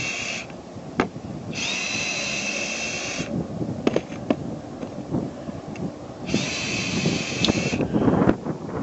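A power drill running in two bursts of about a second and a half, each spinning up at the start, while the old roof patch is being taken off. There are scrapes and a few sharp knocks between the bursts.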